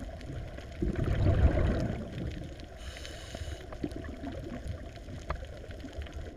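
Underwater ambience: a low, noisy rush of moving water that swells louder about a second in.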